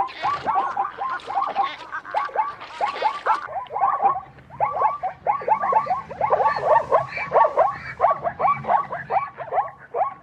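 Zebra calling in its barking bray: a rapid series of short, falling yelps, several a second, in long runs with a brief lull about four seconds in.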